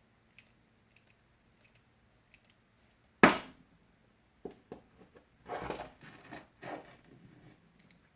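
Hand tools and small metal pedal parts being handled on a bench: light clicks, one sharp clank about three seconds in, then brief rattling and scraping as parts are picked up and fitted.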